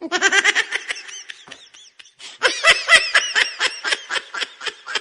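High-pitched laughter in rapid repeated bursts, in two bouts with a short pause about two seconds in.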